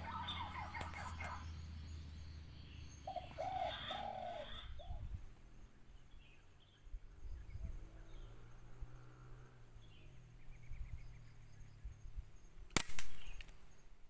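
A few repeated bird calls in the first seconds. About 13 seconds in comes a single sharp air rifle shot, fired at a bird seen through the scope.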